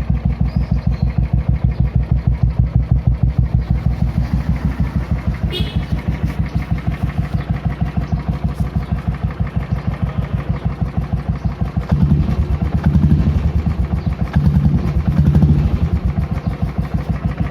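Royal Enfield Classic 350's single-cylinder engine idling with a steady, even thump, breathing through its stock air filter. The revs rise briefly twice about two-thirds of the way through, then settle back to idle.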